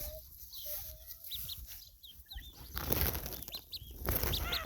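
Ducklings peeping: many short, high chirps in quick succession. About halfway through, a louder rustling noise joins in, like feathers or bedding being stirred.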